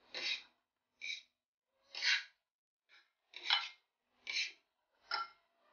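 A metal fork scraping against a ceramic bowl as stuffed olives are turned in beaten egg: about six short scrapes, roughly one a second.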